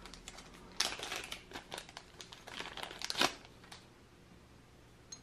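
Small clear plastic bag crinkling and rustling in the hands as it is opened to take out a metal token. The crackling is irregular, with louder bursts about a second in and again around three seconds, and stops a little before four seconds in.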